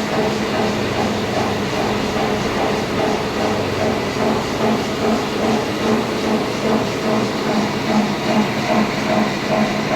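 Heavy-duty lathe running, a steady mechanical noise with an even pulse about two to three times a second.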